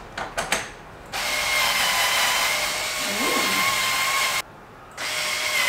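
Electric power drill running at a steady speed, driving screws during furniture assembly: one run of about three seconds, a brief stop, then it starts again near the end. A few light knocks come before it.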